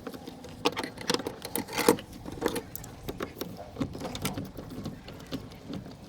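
Irregular metallic clicks and clinks of a hand tool working the nuts as a steering-wheel hub is tightened, the loudest strikes in the first couple of seconds.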